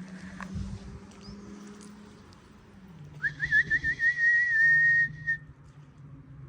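A person whistling: a few quick rising chirps about three seconds in, then one held note for about two seconds.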